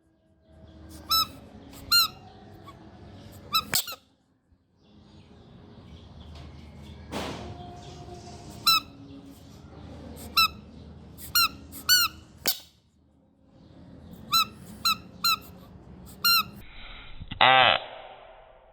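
A series of short, high-pitched squeaks in clusters of two to five, with one longer, louder squeal near the end.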